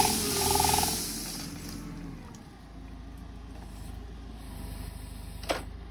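A tractor-driven olive trunk shaker runs loudly, then winds down over the first couple of seconds, leaving a steady low engine hum. One sharp click comes near the end.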